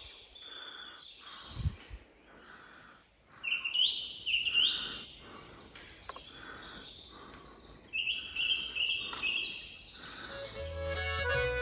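Songbirds singing: quick runs of high chirping notes come in bursts near the start, in the middle and again toward the end, over a faint steady hiss.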